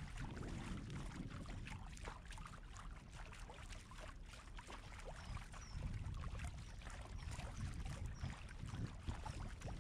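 Water splashing and lapping around the bow of an Itiwit X500 inflatable kayak as it is paddled, with small irregular splashes and drips over a steady low wind rumble on the microphone.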